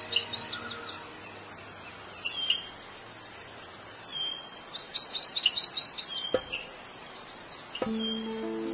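A steady high insect chorus like crickets, with two runs of rapid bird-like chirps, one at the start and one about five seconds in. Near the end come two sharp clicks, the second followed by low held tones.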